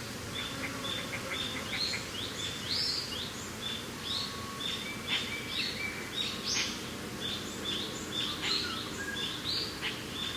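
Many small birds chirping in quick short calls that overlap throughout, over a steady low hiss of wind.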